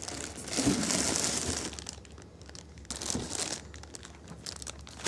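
Packing material crinkling as it is handled: two spells of rustling, the first about a second long and the second shorter, with a few light clicks between them.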